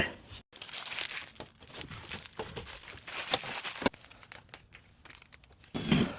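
Irregular crinkling and rustling with scattered small clicks and knocks, as of material being handled or shifted.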